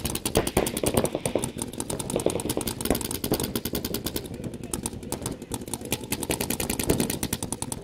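Paintball markers firing in rapid, continuous strings, many shots a second.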